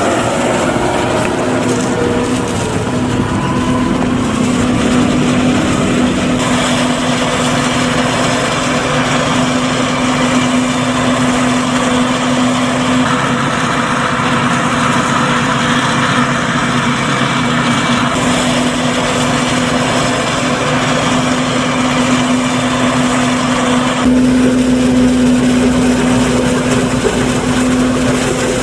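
Claas Jaguar 950 forage harvester chopping maize, its engine and chopper running steadily under load, with the Fendt tractor pulling the trailer alongside. A steady hum holds throughout, and the overall sound shifts abruptly a few times.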